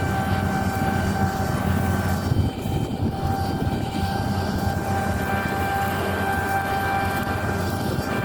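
Claas Lexion 8900 combine harvester running steadily at working speed, a constant engine drone with a high, even whine from the machinery.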